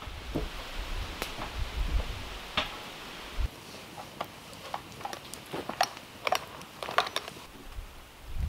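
Wooden boards and poles knocking and clattering as they are handled and fitted: irregular sharp knocks, with a low rumble in the first few seconds that stops suddenly.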